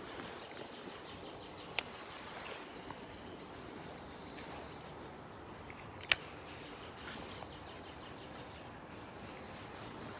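Steady outdoor background hiss broken by two sharp clicks, a small one about two seconds in and a much louder one about six seconds in, as a hand knocks and brushes against the phone.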